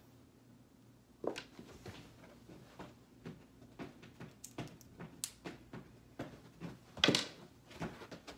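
Pillows and bedding being handled while a bed is made: scattered soft rustles and thumps, the loudest about seven seconds in.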